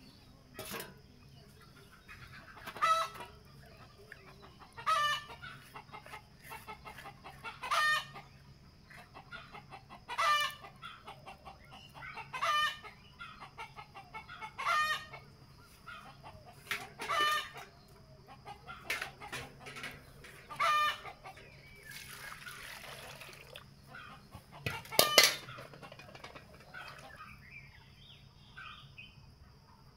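A chicken calling over and over: a short call roughly every two seconds, the loudest about three-quarters of the way through.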